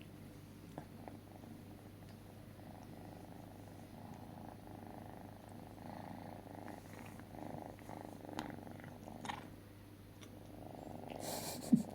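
A pet purring steadily while it grooms itself, with a few faint clicks. A short, louder breathy sound comes near the end.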